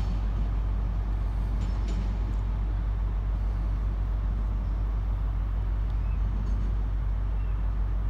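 Steady low rumble of railway station ambience, diesel trains running, with no single event standing out.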